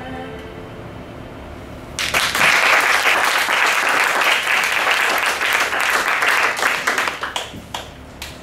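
Audience applause after a musical number: the song's last notes fade away, and about two seconds in a crowd breaks into clapping that holds steady for several seconds, then thins to a few scattered claps near the end.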